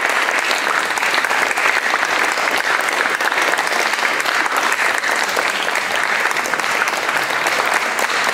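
Audience applauding steadily, many hands clapping in a dense, even spread.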